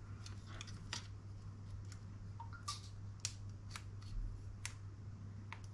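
Irregular small plastic clicks and taps as a scale-model plastic dashboard part is handled and a small wire connector is worked into it, over a steady low hum.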